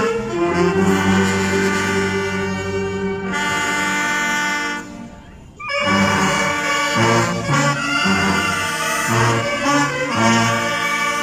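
School marching band's brass section (trumpets, trombones and low brass) playing: a long held chord that fades out a little before halfway, then a short rhythmic phrase over repeated bass notes.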